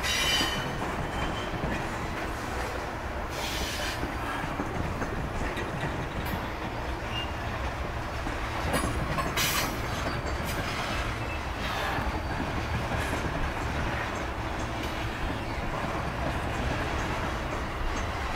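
Ballast hopper cars of a freight train rolling steadily past, wheels clacking over the rails with a constant low rumble. A few short, high screeches of wheel on rail cut in now and then.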